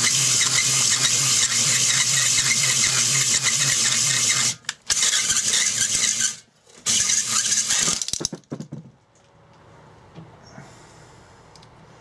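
A drill spins a cylinder hone inside the bore of a Briggs & Stratton 60102 2 hp engine block, giving a steady motor hum with a scraping hiss as the hone cleans up scoring in the cylinder wall. It cuts out briefly twice, about four and a half and six seconds in, then stops for good about eight and a half seconds in.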